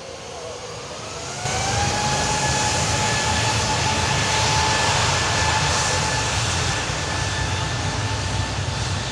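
IndiGo narrow-body jet airliner's engines spooling up for takeoff: a rising whine that levels off into a steady, loud jet noise about two seconds in, with a sudden jump in loudness about a second and a half in.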